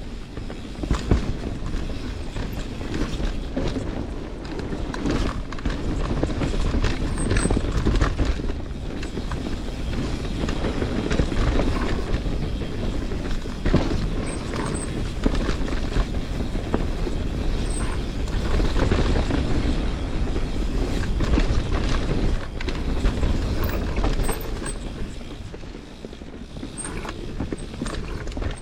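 Canyon Spectral 29 CFR full-suspension mountain bike descending a rough dirt trail: continuous rumble of tyres on dirt and rock with the bike clattering and knocking over bumps, and wind on the microphone.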